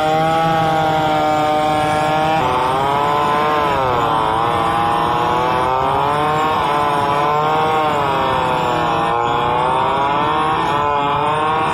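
Large two-stroke chainsaw, an assembled copy of the Stihl 070, running under load as it rips a log lengthwise. The engine pitch sags and recovers a few times as the chain bites into the wood.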